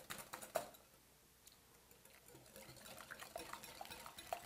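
Milk poured faintly into a mixing bowl, with a few small clicks of kitchenware.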